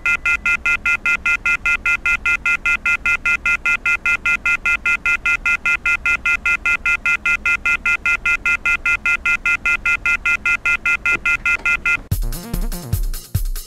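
Telephone off-hook warning tone from a receiver left off the hook: loud, rapid electronic beeping about five times a second. It cuts off about twelve seconds in, and electronic music starts.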